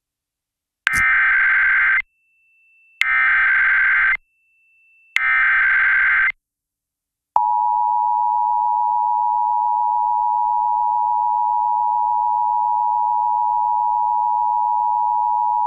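Emergency Alert System SAME header: three bursts of about a second each of warbling digital data screech. About seven seconds in, the steady two-tone EAS attention signal starts and holds for about eight seconds, marking the start of a new alert.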